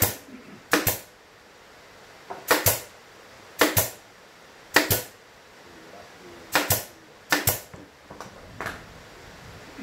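Pneumatic brad nailer driving F-series brad nails into plywood while the panels of a small speaker cabinet are nailed together. About seven sharp shots come roughly a second apart, each a quick double crack, with a couple of fainter ones near the end.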